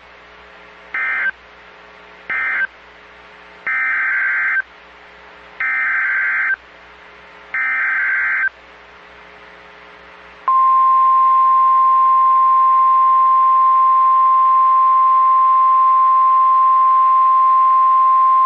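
Emergency Alert System (SAME) data bursts from a weather radio broadcast. First come two short warbling bursts, the end-of-message code closing the previous warning, then three longer bursts about two seconds apart, the header of the next alert. About ten seconds in, the steady 1050 Hz warning alarm tone begins and holds.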